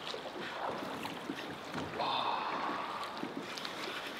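River water moving around a drifting boat, with wind on the microphone. About two seconds in, a brief whirring lasts about a second.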